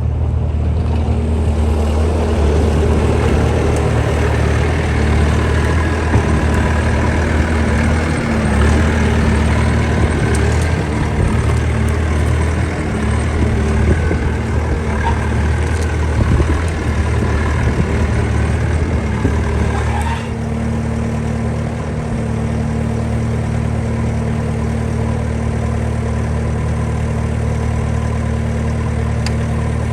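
Bobcat skid steer engine running steadily at close range. It works harder for about the first twenty seconds, then eases down slightly and settles.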